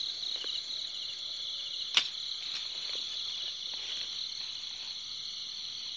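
Crickets chirring steadily in a high-pitched trill, with one sharp click about two seconds in.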